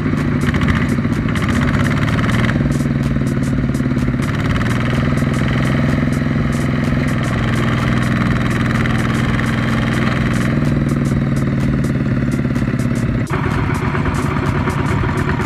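Single-cylinder diesel engine of a two-wheel walking tractor running under load, pulling a trailer of rice sacks through sticky mud, with a rapid, even firing clatter. Its note shifts a few times.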